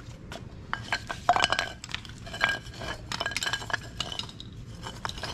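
Metal hooks and buckles of ratchet tie-down straps clinking and clattering as the straps and their padded handlebar loops are handled: a string of short, uneven metallic clinks with brief ringing.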